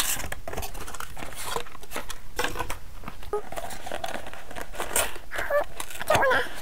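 Cardboard boxes being handled and their flaps opened by hand: irregular scraping, rustling and light knocks of cardboard.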